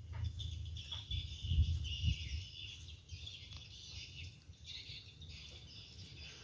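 Birds chirping in the background over a low rumble, with a few faint clicks.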